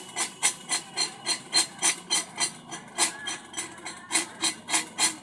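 Hammer tapping on metal in a fast, even rhythm of about three to four strikes a second, each with a short ring.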